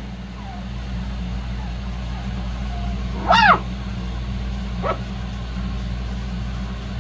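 Shih-poo puppy giving one loud high yip, rising then falling in pitch, a little over three seconds in, and a shorter yelp near five seconds, over a steady low hum.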